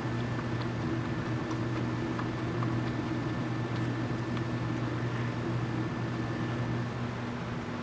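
A steady mechanical hum, like a fan or heater motor running, with a few faint light ticks over it; the hum eases slightly near the end.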